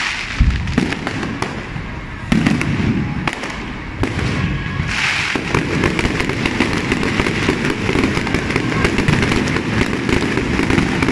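Aerial firework shells bursting in quick succession: sharp bangs over a dense crackling, building into a near-continuous barrage from about four seconds in.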